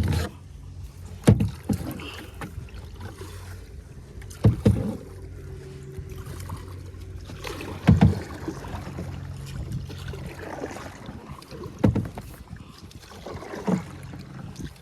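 Kayak on the water, with a knock or splash every three to four seconds over a low steady hum.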